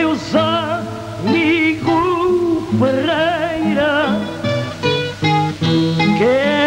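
Acoustic guitar accompaniment of cantigas ao desafio playing a melodic passage, the melody notes wavering with strong vibrato over plucked lower notes.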